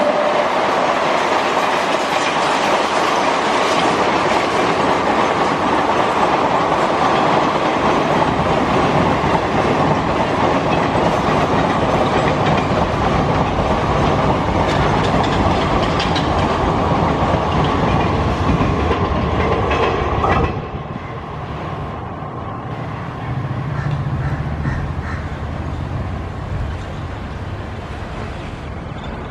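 Express train passenger coaches rolling past at speed: a loud, steady rush of wheels on rail with a steady high ringing tone over it. About two-thirds of the way through it cuts off suddenly to a quieter background rumble.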